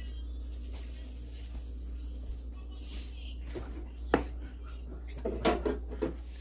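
Steady low hum, with one sharp knock about four seconds in and a quick run of knocks and clatters about a second later.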